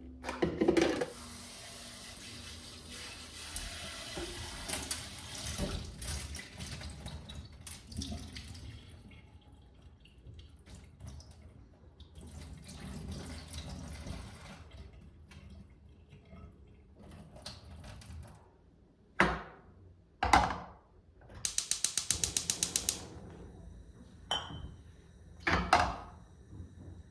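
Tap water running into a sink for about nine seconds, then assorted handling clicks and knocks, with a quick run of clicks a little before the end.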